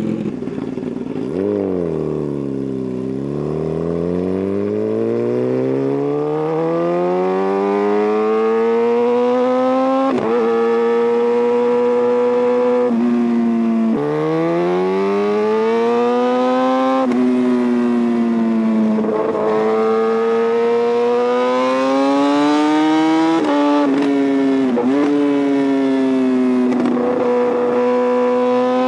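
Kawasaki ZX-10R's inline-four running through a Racefit titanium exhaust, revving as it accelerates: the pitch dips, then climbs and drops sharply several times as it shifts up through the gears, holding steady in between.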